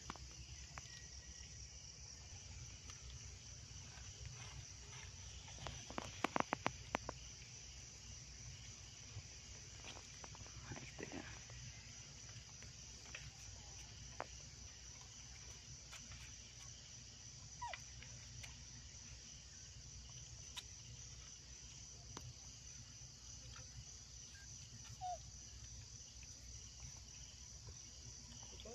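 Steady, fast-pulsing high chirring of insects. A quick run of sharp clicks about six seconds in, and a few faint short chirps later on.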